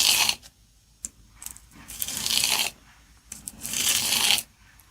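Morakniv blade being worked on sandpaper: three scraping rasps, each under a second long, about two seconds apart.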